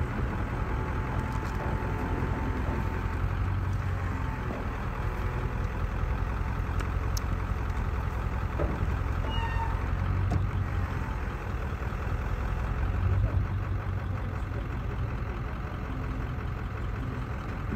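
Pickup truck engine idling steadily, a low, even rumble, with a faint short high-pitched call about nine and a half seconds in.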